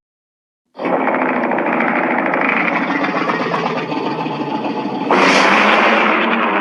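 A loud, distorted film sound effect of the monster or energy-weapon kind. After a brief silence it starts about a second in and runs steadily as a dense, rough noise. About five seconds in it jumps louder and brighter.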